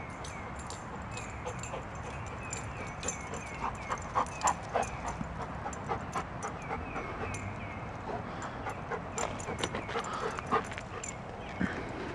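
A dog close by, with crunching steps on gravel that are loudest about four to five seconds in and again around ten seconds. A short high chirp repeats throughout.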